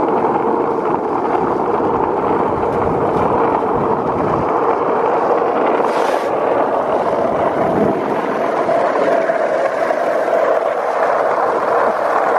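Steady rushing road and wind noise of travelling at speed down an asphalt road, with a steady hum running through it and a brief hiss about six seconds in.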